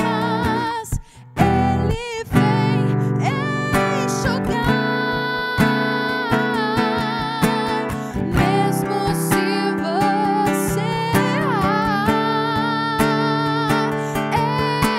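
A woman singing with vibrato, accompanied by a plucked and strummed nylon-string classical guitar. The music breaks off briefly about a second in.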